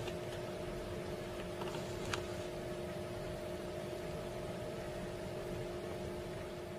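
Heavy diesel trucks' engines running steadily, heard as a faint, even hum under a steady hiss, with one light click about two seconds in.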